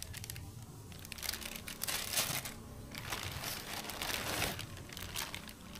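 Packaging wrap crinkling and rustling as it is handled and pulled off during an unboxing, in irregular spells, the longest about two seconds in and from about three to four and a half seconds in.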